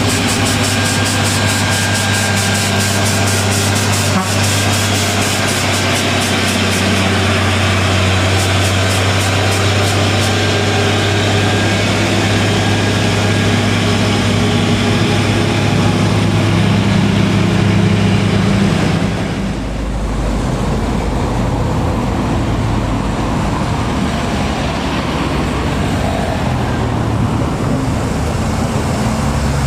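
Diesel engine of a heavily loaded Mitsubishi Fuso tandem-axle truck straining as it crawls uphill carrying concrete U-ditch segments, with a fast ticking over it for the first ten seconds or so. About two-thirds of the way through it gives way to a Hino truck's diesel climbing with a deeper note.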